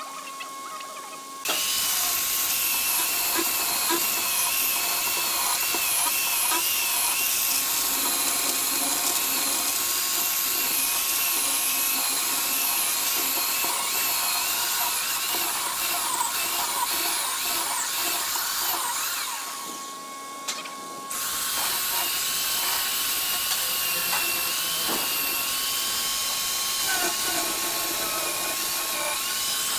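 Electric chainsaw cutting through a thick wooden slab, a high whine wavering with the load. The saw starts a second or two in, eases off for about a second and a half around two-thirds of the way through, then cuts again.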